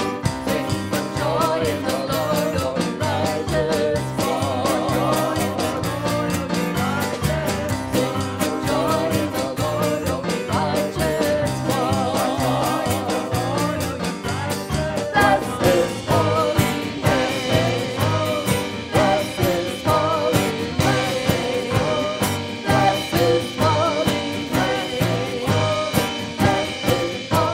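Worship dance song: a singing voice over an instrumental band. About halfway through, a strong, steady beat takes over.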